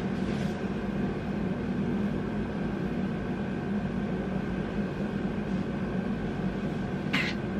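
Steady room hum from a running appliance, with a low drone and a faint high tone held over it. A brief soft sound comes near the end.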